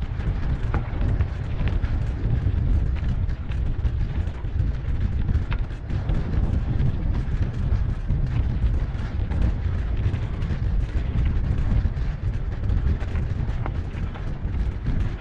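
Wind buffeting the microphone of a camera carried on a moving mountain bike, a steady heavy rumble with scattered small clicks and rattles.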